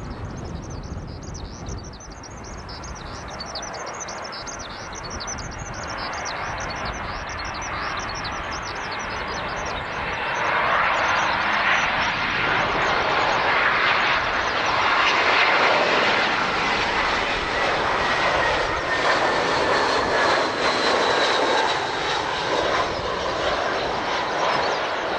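A jet airliner's engines grow louder as it approaches over the first ten seconds and then hold as a loud rush. Through the rush, whining tones slowly fall in pitch as the plane goes past.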